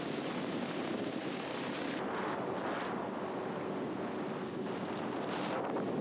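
Steady outdoor wind and water noise, with brief swells of rushing hiss about two seconds in and again near the end.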